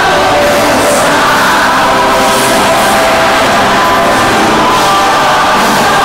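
Live sertanejo music played loud through a concert PA in a large hall, with a big crowd singing along.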